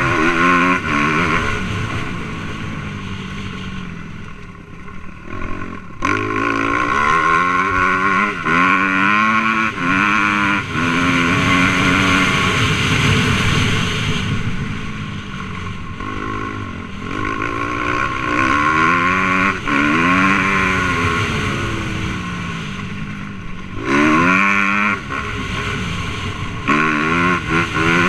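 Suzuki RM-Z250's single-cylinder four-stroke engine under hard riding, revving up and dropping back again and again as it is throttled and shifted. The engine note falls away for a couple of seconds about four seconds in, and again briefly around twenty-two seconds, before picking up.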